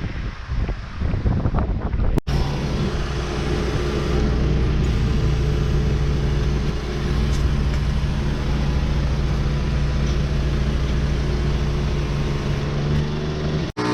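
Wind noise for about two seconds, then an abrupt cut to a vehicle engine running steadily at an even pitch while driving.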